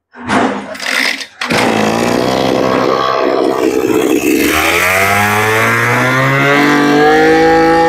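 Small two-stroke brush cutter engine starting about a second and a half in, running roughly at low speed, then revved up from about halfway and held at a high, steady speed.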